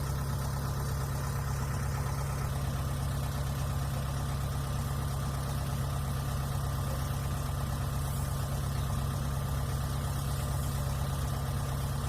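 Diesel engine of a Kubota DC70 Plus combine harvester running steadily at an even speed, a constant low hum with no revving.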